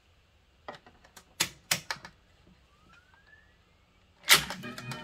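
Revox A77 reel-to-reel deck's switches and transport buttons clicking several times, then about four seconds in a loud clunk as play engages and recorded music starts coming from the tape. It plays now that a test reproduce card is fitted in place of the recapped original cards.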